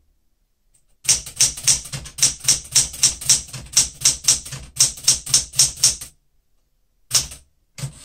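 Keys striking on a Smith-Corona Galaxie Deluxe manual typewriter, with its touch pressure set to low. It starts about a second in with a fast, even run of typebar strikes at about five a second for some five seconds, pauses briefly, then gives two more strikes near the end.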